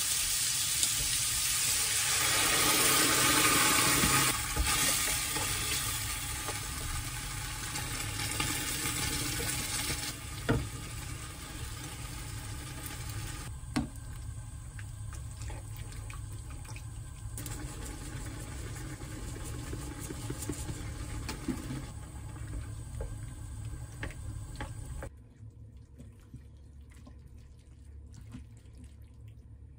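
Food sizzling and bubbling in a hot pan, with a few sharp clicks of metal tongs and kitchen scissors. The hiss is loudest at first, drops in steps, and is much quieter in the last few seconds.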